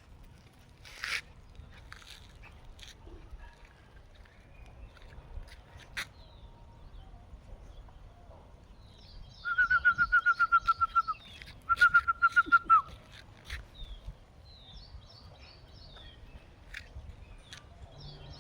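A bird calling in a fast trill of short notes on one pitch, in two runs near the middle, over faint background chirping.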